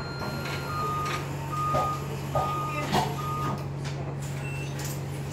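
Warning beeps on a city bus: four short, evenly spaced beeps on one steady tone that stop about two-thirds of the way through. Underneath are the bus's steady running hum and a few regular clicks.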